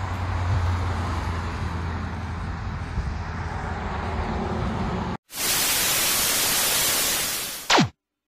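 A steady low rumble with a hiss for about five seconds, then a sudden cut to loud television static lasting about two and a half seconds. The static ends in a quick falling tone, the sound effect of an old tube TV switching off.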